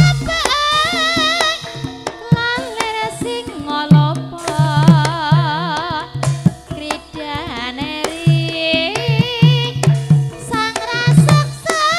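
Javanese gamelan (karawitan) playing tayub dance music: a high voice sings long phrases with wide vibrato over ringing bronze metallophone tones and repeated kendang drum strokes.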